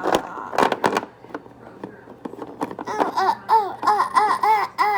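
A child's voice doing fake sneezes, two quick noisy bursts near the start, followed about three seconds in by a fast run of rising-and-falling 'ha-ha' syllables, like giggling.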